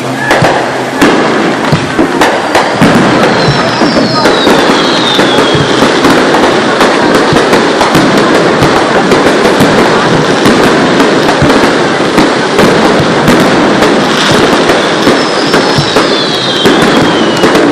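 Aerial fireworks display: a continuous rapid run of loud bangs and crackling shells. A falling whistle cuts through twice, once a few seconds in and once near the end.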